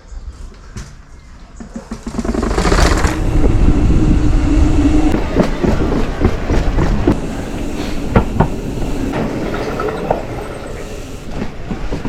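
Amflow e-mountain bike riding over rough ground: tyre rumble with rattling and sharp knocks from the frame and chain, starting loud about two seconds in.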